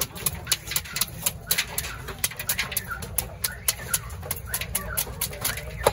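Knife scraping the scales off a large fish on a wooden chopping block: a rapid run of sharp scratchy strokes, about four a second.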